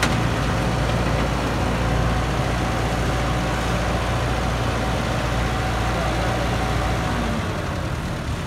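Heavy diesel engine idling steadily, a low rumble that thins near the end as its deepest part drops away.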